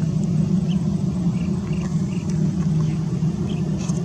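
Airbus A320 jet engines running with a steady low rumble as the airliner rolls along the runway.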